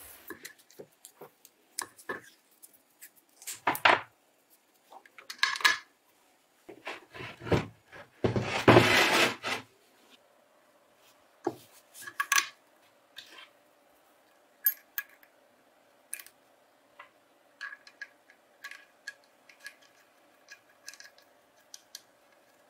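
Metal clinks, knocks and scrapes of a bench grinder's cast base and a toggle switch being handled on a workbench as the switch is fitted and fastened, with a louder scraping rush about eight to nine and a half seconds in, then small scattered ticks.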